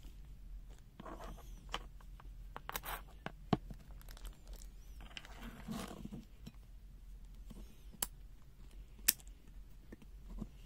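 Hand-handling of an adjustable-angle welding magnet as its hinged steel arms are moved: rustling and scraping with three sharp clicks.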